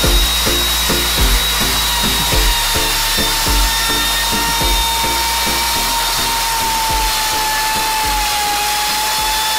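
Bosch POF 1200 AE plunge router running steadily with a high whine, milling the face of an oak log section. Background music with a steady beat plays over it.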